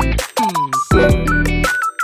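Upbeat background music with a strong bass and beat, with a short falling-pitch sound effect about half a second in.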